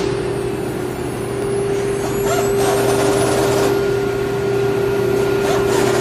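CNC router spindle running with a steady hum while milling a wooden door panel. Rougher cutting noise comes in about two seconds in and again near the end, with a faint rising whine during the first cut.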